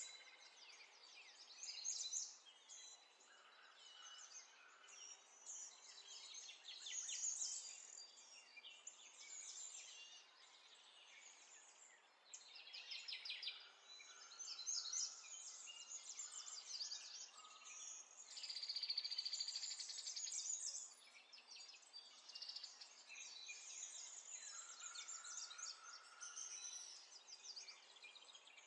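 Faint birds chirping and trilling, in repeated bouts of rapid high chirps with a few short held notes.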